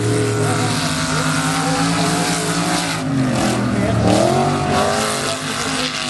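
Several rear-wheel-drive autocross stock cars racing on a dirt track, their engines revving and the pitch rising and falling as they slide through the turns, over a rush of tyre and dirt noise.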